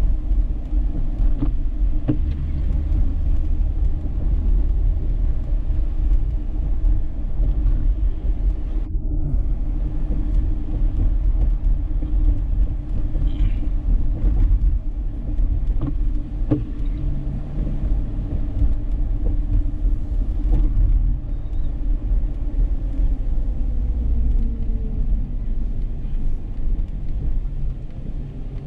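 Dodge Charger being driven: a steady low rumble of engine and road noise, with a few faint clicks and knocks.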